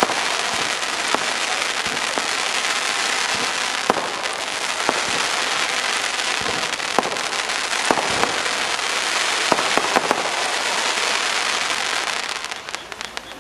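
Fireworks going off: a dense, continuous crackling hiss of golden sparkling shells, with scattered sharp pops, dying away near the end.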